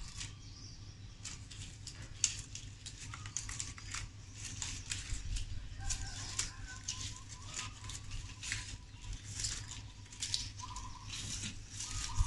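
Strips of coconut palm leaf rustling and crackling against each other as they are threaded and woven by hand into a hat brim, an irregular run of crisp, scratchy rustles, over a low steady hum.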